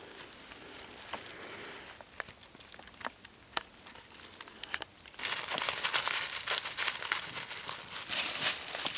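Wood fire burning inside a split-log Swedish torch: scattered sharp pops and crackles, then about five seconds in a louder, denser crackling with a steady hiss.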